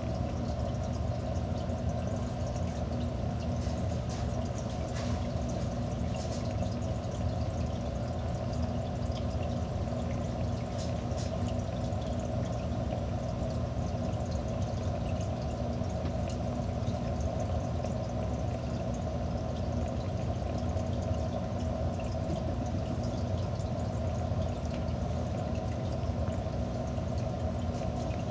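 Aquarium filter running: a steady low hum with water flowing and trickling, and faint scattered ticks.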